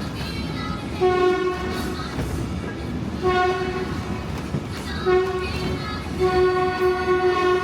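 A train whistle sounding four blasts in the long, long, short, long pattern of a grade-crossing warning. The last blast is held and runs on, over the rumble of the moving train.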